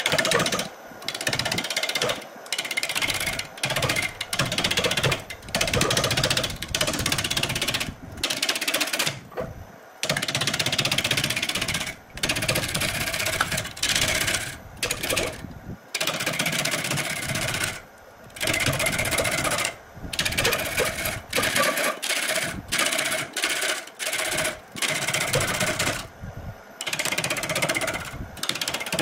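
A turning tool cutting into a large wooden blank spinning on a wood lathe: a loud, rough, chattering scrape that comes in passes of a second or two, broken by brief gaps.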